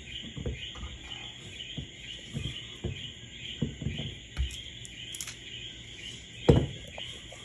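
Dull knocks and thuds of stiff guava cookie dough being worked out of a mixing bowl by hand, scattered and irregular, the loudest about six and a half seconds in, over a steady chirring of insects.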